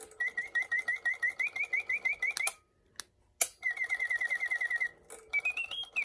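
A restored 1950s automaton singing bird chirping: quick whistled chirps, about six a second, in two runs with a short break and a few clicks between them. A rising whistled note comes near the end, and then the chirping starts again.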